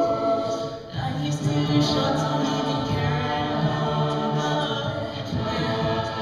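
Choir singing a cappella in several parts, holding chords. The voices drop away briefly just before a second in, then come back in.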